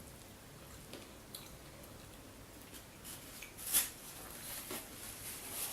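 Faint eating sounds: quiet chewing with a few soft clicks and rustles, a little louder after about three seconds.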